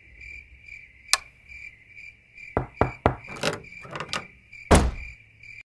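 Crickets chirping in a steady high trill that pulses about three times a second. From about a second in come a series of sharp knocks and thumps, the heaviest near the end.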